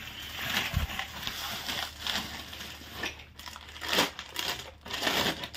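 Bubble wrap and a clear plastic bag crinkling and rustling irregularly as they are handled by hand and a plastic part is unwrapped from them.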